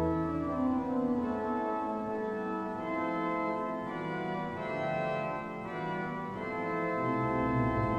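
Organ music: slow, sustained chords with notes held and changing every second or so.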